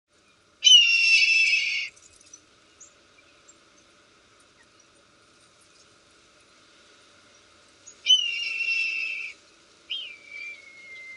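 Bird-of-prey screams: two long cries about seven seconds apart, each dropping sharply in pitch at the start and then holding, and a shorter falling cry near the end.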